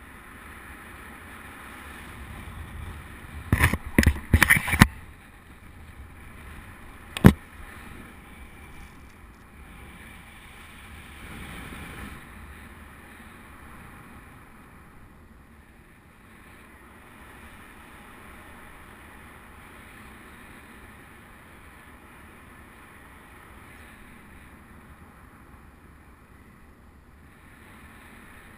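Steady wind rush on the camera microphone of a paraglider in flight. A quick run of loud knocks comes a few seconds in, and a single sharp click follows a few seconds later.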